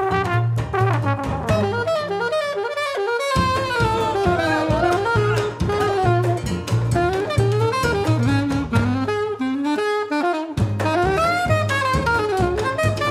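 Alto saxophone solo in a small hot-jazz band, over a banjo, double bass and drum rhythm section. Twice the bass and drums drop out for about a second and a half, leaving the saxophone nearly alone in short breaks.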